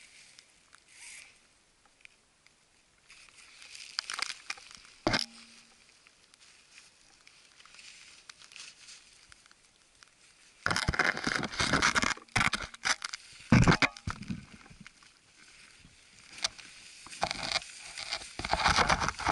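Rime-coated branches and snow scraping and crunching against the camera and clothing as a climber pushes through them, in bursts. The loudest rubbing starts about ten seconds in and comes back near the end, with one sharp knock around five seconds in.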